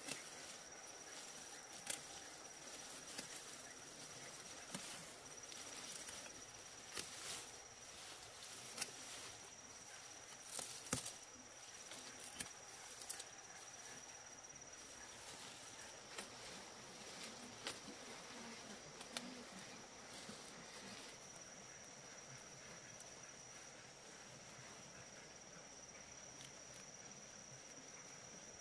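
A steady, high-pitched insect trill, with scattered sharp clicks and knocks during roughly the first twenty seconds.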